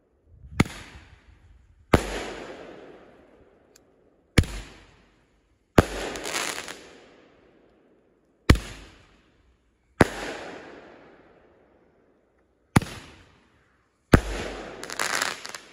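Roman candle firing shot after shot: eight sharp bangs, one to three seconds apart, each trailing off quickly. The shots about six seconds in and near the end are followed by a longer noisy tail.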